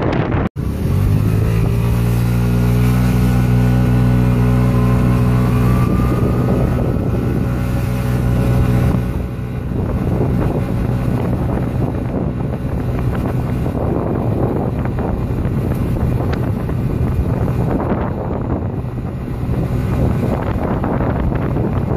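Honda Vision NSC50 scooter's 50 cc four-stroke single accelerating under load through its CVT, fitted with a Polini Hi-Speed variator; the engine note comes in high and climbs slowly. From about nine seconds in, wind buffeting the microphone at speed drowns out the engine.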